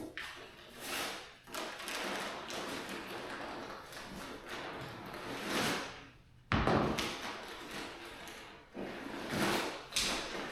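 Strong wind gusting over the microphone, swelling and fading, with a sudden heavy buffet about six and a half seconds in.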